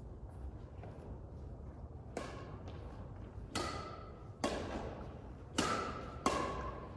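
Badminton racquets striking a shuttlecock in a rally: about five sharp, echoing hits, the first faint about two seconds in, then coming roughly every second toward the end.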